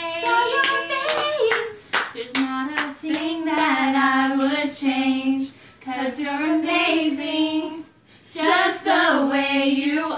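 Young women's voices singing a made-up love song without accompaniment, with hand claps over the first few seconds. The singing breaks off briefly twice in the second half.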